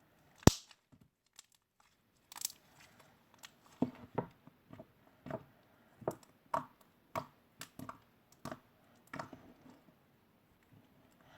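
Slime being squeezed and poked by hand: one sharp pop about half a second in, then a run of irregular sticky clicks and pops.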